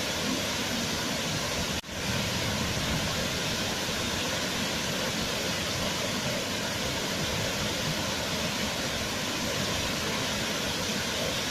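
Waterfall rushing with a steady, even roar of water, broken by a brief dip in level about two seconds in.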